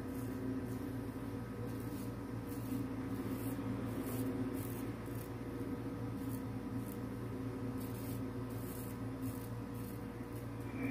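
Straight razor scraping through two days' stubble on a lathered neck: a series of short, irregular rasping strokes. A steady electrical hum runs underneath.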